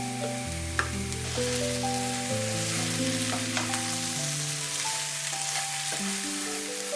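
Vegetables sizzling in oil in a frying pan as they are sautéed, with a few light clicks of a utensil stirring them. Background music plays over it.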